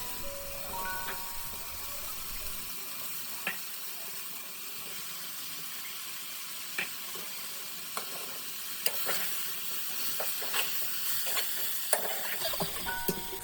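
Food sizzling in hot oil in a pan, a steady hiss, with occasional sharp taps of a utensil against the pan as it is stirred.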